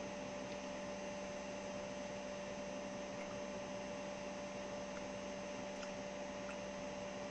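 Steady electrical hum with a constant hiss beneath it, unchanging throughout.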